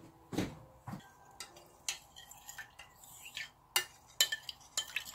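Light clinks and knocks of kitchen utensils and dishes being handled, about half a dozen spread out with quiet between them.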